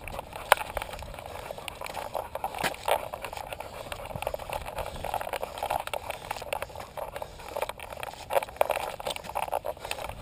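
Jostling and rubbing noise from a camera strapped to a dog's harness as the dog trots up a dry dirt trail, with irregular knocks and clicks from the mount among a steady scuffing rustle.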